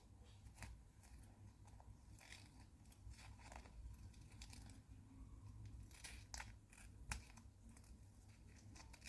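Faint, scattered snips of scissors cutting away the excess of clear-taped paper, with light paper handling between the cuts.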